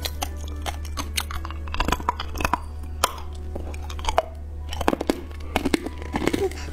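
Hard candy being crunched and chewed close to the microphone: a quick, irregular string of sharp cracks and crunches as the candy breaks between the teeth.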